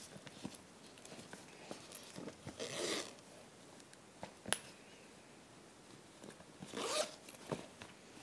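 A handbag's metal zipper is pulled twice, a few seconds apart, each pull a short scratchy run. Between the pulls there is one sharp click, with soft rustling of the fabric lining as the bag is handled.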